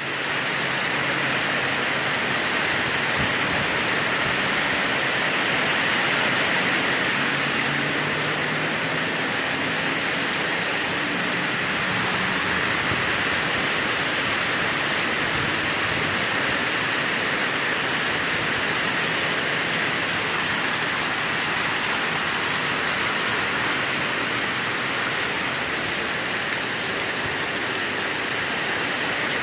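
Floodwater rushing steadily past like a river, a constant even roar.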